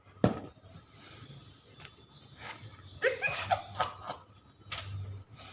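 A sharp click just after the start, then a woman's brief chuckle about three seconds in, with a few short breathy sounds around it.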